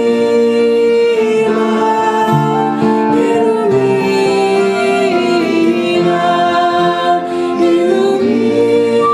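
Kirtan devotional chant: voices singing long held notes in a slowly moving melody over strummed acoustic guitars.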